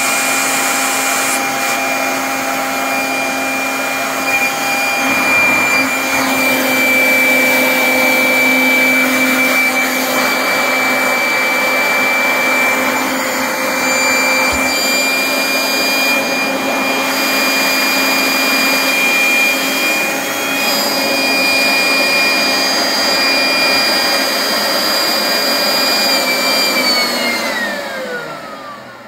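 Corded electric leaf blower running steadily with a loud whine over rushing air. Near the end its motor winds down, the whine falling in pitch and fading.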